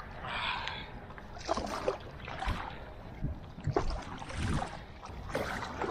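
Paddle strokes from a stand-up paddleboard paddle dipping and pulling through water, a splashy swish about once a second.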